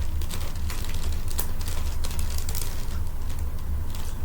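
Plastic 3x3 Rubik's cube being turned quickly by hand, its layers making quick, irregular clicks and rattles over a steady low hum.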